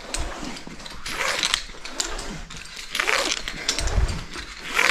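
Caver ascending a rope with a handled rope ascender: heavy breathing and the rasp of the ascender sliding up the rope, one stroke about every one and a half to two seconds, with a dull low thud about four seconds in.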